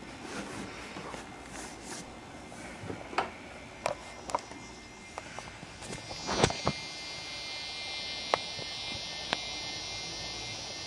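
Handling noise of a handheld camcorder being moved: scattered clicks and knocks, with a louder thump about six and a half seconds in. Right after the thump a steady, high-pitched electrical hum with several tones sets in and keeps going.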